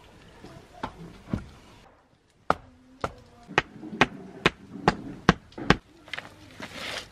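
A hatchet used as a hammer knocking a wooden board into place: two knocks, a short pause, then a steady run of about eight sharp knocks, two or three a second.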